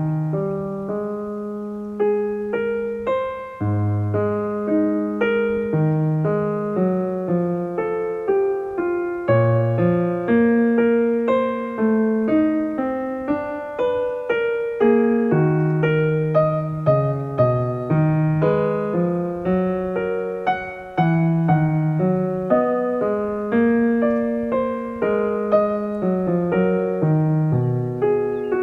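Soft background piano music: a slow melody over sustained bass notes.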